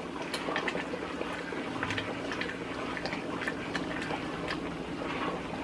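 Thick tomato purée boiling as it reduces in a pot, stirred with a wooden spoon: many sharp pops of bursting bubbles over a steady bubbling hiss.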